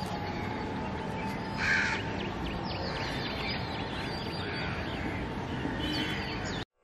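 Birds in the open: a crow caws, most clearly once about two seconds in, while small birds chirp repeatedly over a steady background hiss. The sound cuts off abruptly just before the end.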